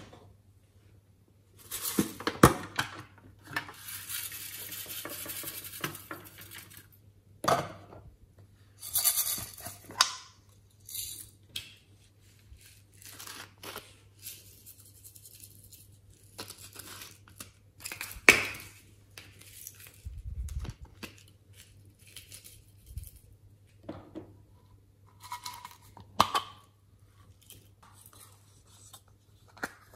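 Hands handling plastic slime containers and a glitter bottle: scattered plastic clicks and taps and crinkly rustling, with a longer stretch of rustling a few seconds in and a dull thump around two-thirds of the way through.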